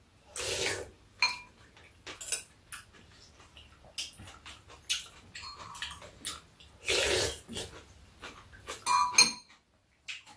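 Slurping of soup and bean sprouts off spoons, with two longer slurps about a second in and around seven seconds in. Spoons clink lightly against ceramic bowls in between.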